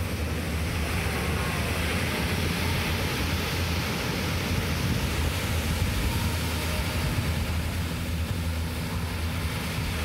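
Steady wind rumble on the microphone over the even wash of surf breaking on a sandy beach.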